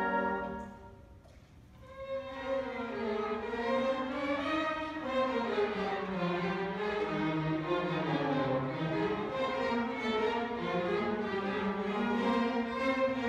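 Orchestra playing: a held chord dies away about a second in, and after a short hush the strings come back in with a flowing melody over moving lower lines.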